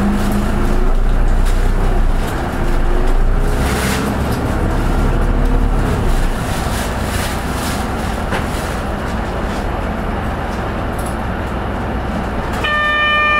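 A Hino Poncho small bus heard from inside the cabin. Its diesel engine accelerates with a rising pitch over the first few seconds, then runs steadily along the road. Near the end a short electronic chime of several stacked tones sounds.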